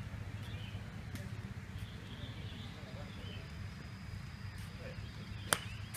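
Golf club striking a ball on the tee: one sharp crack about five and a half seconds in, with a fainter strike about a second in, over steady outdoor background. A thin steady high tone sets in a little before the middle.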